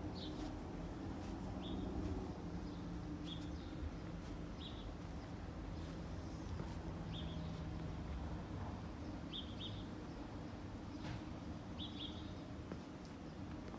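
A small bird chirping, single short high chirps repeated every second or two, over a steady low background rumble.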